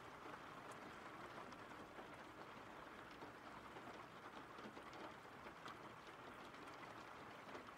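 Faint, steady rain falling, an even hiss with scattered small drop ticks.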